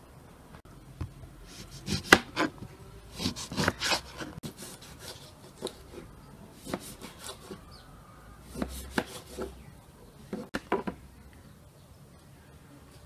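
Knife slicing a lemon on a wooden cutting board, in irregular short runs of knocks as the blade cuts through and strikes the board.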